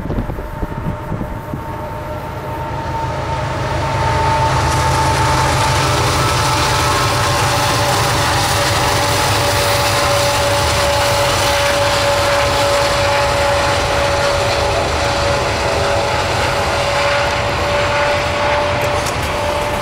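Diesel-hauled double-stack freight train passing close by. It grows louder about four seconds in, then runs as a steady rolling rumble of locomotives and cars on the rails, with a steady high whine running through it.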